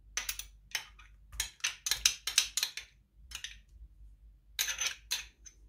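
A metal spoon scraping and clinking against a small glass dish and the mixing bowl as sour cream is scooped out: a quick run of clinks and scrapes, a pause, then a few more near the end.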